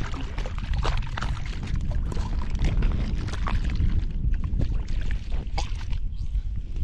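Wind buffeting the microphone as a steady low rumble, with scattered small clicks and knocks over it.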